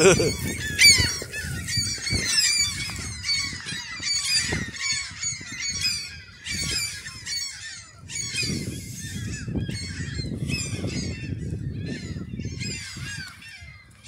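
A flock of gulls calling over and over, many short, falling, squealing calls overlapping one another.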